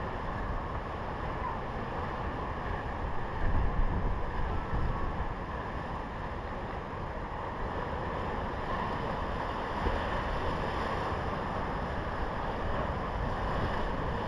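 Sea waves washing and breaking against rock, a steady surf noise with heavier surges about four seconds in and again around ten seconds. Wind buffets the microphone with low rumbles.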